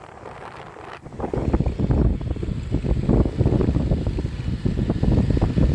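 Wind buffeting the microphone during a ride, a loud, low, gusty rumble that starts suddenly about a second in.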